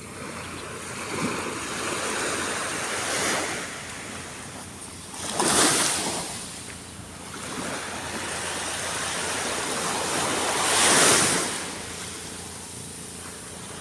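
Ocean surf: waves washing in and breaking in repeated swells of noise, the two biggest crashes coming about midway and near the end.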